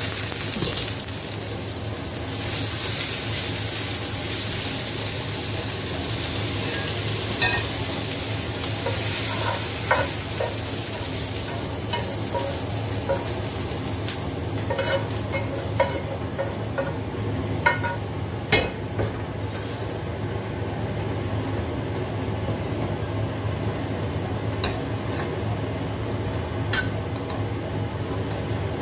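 Shredded cabbage and vegetables sizzling in a hot wok over a gas burner as they are stir-fried, with a spatula scraping and knocking now and then against the wok. The sizzle is loudest in the first half and dies down after about sixteen seconds.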